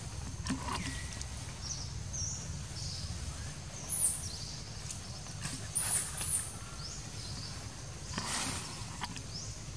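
Outdoor treetop ambience: a steady low rumble with scattered short, high-pitched squeaks, and a few brief rustling bursts as a macaque moves among the branches and leaves.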